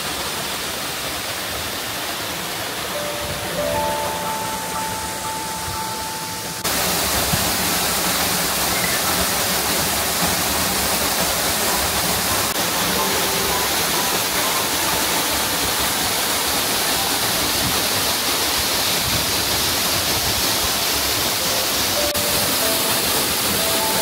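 Waterfall: a steady rush of falling water, which jumps suddenly louder about seven seconds in. Soft background music notes sound faintly underneath.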